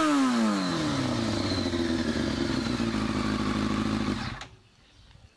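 Yamaha R1's inline-four engine, exhausting through a Yoshimura slip-on muffler, dropping back from a rev to a steady idle; the sound stops suddenly about four seconds in.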